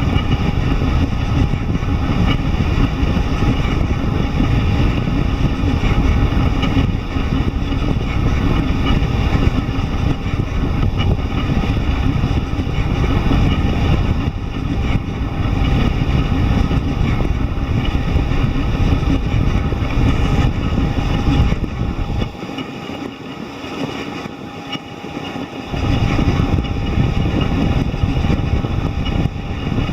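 A delta 3D printer running, its motors and fans giving a steady mechanical noise with a few steady whining tones over it. The low rumble drops out for about three seconds a little past the middle, then returns.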